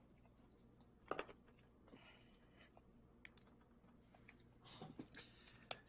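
Faint clicks and light taps of a glued-together salt and pepper shaker pair being handled at a table, a few separate clicks with quiet room tone between.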